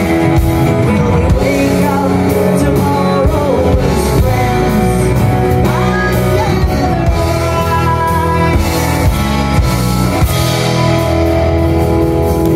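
Live band playing the closing bars of a country-rock song: electric and acoustic guitars over drums, with a woman singing. About ten seconds in, the band settles into a held final chord.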